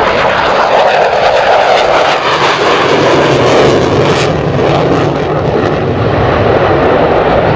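F-14B Tomcat's twin jet engines, loud and steady, as the jet makes a high-speed low pass.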